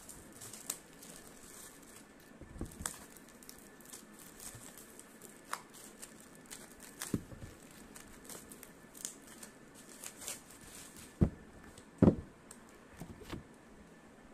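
Plastic packaging rustling as a book is pulled out of it and handled, with scattered light clicks and two loud thumps about a second apart near the end.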